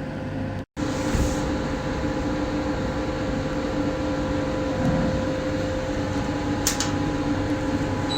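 Steady hum and whir of a running pico laser machine, with a constant low tone under it. The sound cuts out completely for a moment under a second in, and there is one faint click near the end.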